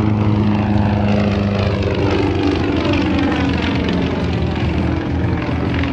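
Yak-50 aerobatic plane's nine-cylinder Vedeneyev M-14P radial engine and propeller running hard in a steady drone, its pitch falling slowly as the plane pulls up into a climb.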